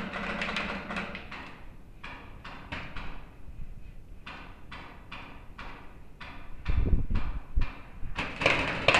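Paintball markers firing, a run of sharp pops about two to three a second echoing through a large hall, with heavy thumps about two-thirds of the way in and a louder burst near the end.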